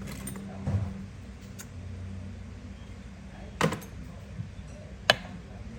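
A few sharp metallic clicks and clinks at irregular intervals, the sharpest about five seconds in, from Zippo lighters being handled, over a steady low hum.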